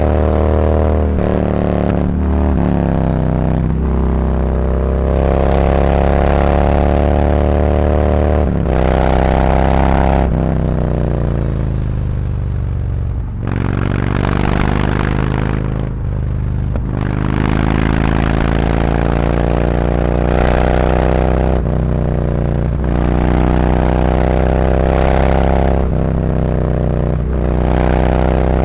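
Harley-Davidson Road Glide V-twin running through SuperTrapp 4-inch internal-disc slip-on mufflers while being ridden: the exhaust note rises repeatedly as it pulls through the gears, with breaks at each shift. Around the middle the pitch falls as the bike slows, then it climbs again.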